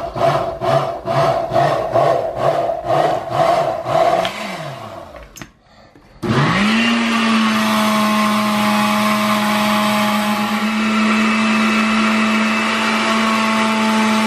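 Countertop blender making a fruit smoothie, first pulsed in quick bursts about three a second, then spinning down and stopping about four seconds in. About six seconds in it starts again, whines up to speed and runs steadily.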